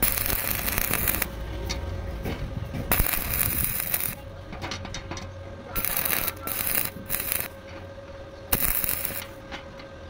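Stick-welding arc crackling and hissing in several short runs of about a second each, stopping and restriking between them, with a steady faint hum underneath.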